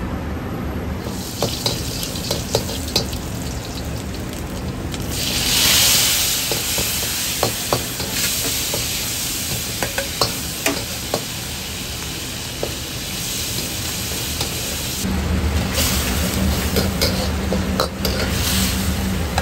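Beef and bitter gourd sizzling in a hot wok as they are stir-fried, with a metal wok ladle scraping and clanking against the pan. The hiss swells loudly about five seconds in, and a low rumble joins in the last few seconds.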